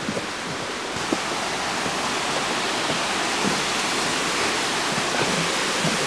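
Steady rushing of a waterfall, growing slightly louder about a second in, with soft footsteps on steps scattered through it.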